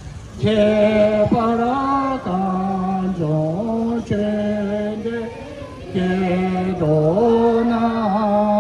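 Tibetan prayer chant: voices hold long notes of about a second each, stepping up and down between a few pitches, with short breaks for breath.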